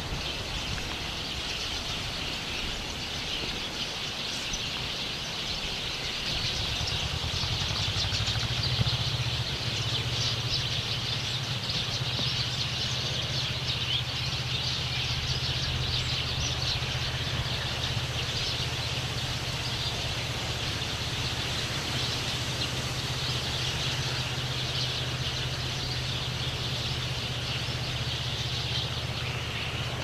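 Many small birds chirping together in a tree, a dense continuous twittering, over a steady low rumble of traffic on a nearby expressway that grows heavier about eight seconds in.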